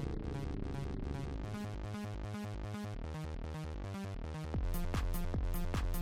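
Electronic dance music with a steady beat; a heavier bass and percussion layer comes in about four and a half seconds in and the music gets louder.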